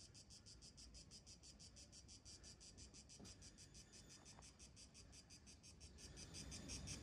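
Faint insect chirring in an even, rapid pulse of about seven beats a second, growing louder near the end.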